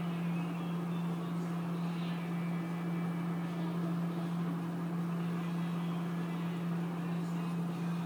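Microwave oven running with a steady low hum over an even rushing noise, heating a whole egg on its turntable.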